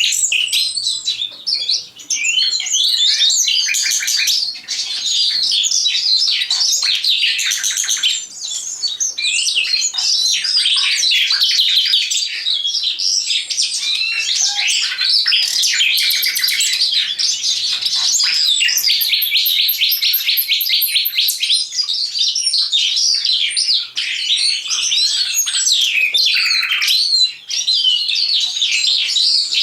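A caged common nightingale and a caged Eurasian skylark singing together: a continuous, dense stream of whistles and chirps broken by rapid trills, with a very high, fast trill about twenty seconds in.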